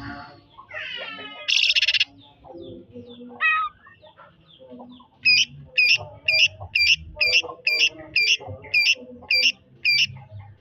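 Green leafbird (cucak ijo) singing: a loud raspy burst about a second and a half in, then a rapid run of about a dozen identical sharp notes, roughly two a second, in the repeated 'trotol' style. Chickens cluck lower down underneath.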